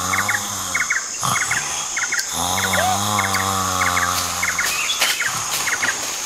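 A person snoring in long, low, drawn-out snores: one ends about a second in and another lasts about two and a half seconds from a little after two seconds in. Behind them, short chirps repeat in pairs against a steady high hiss.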